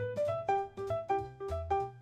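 Background music: a piano melody of short, repeated plucky notes over a bass line, at a brisk steady pulse.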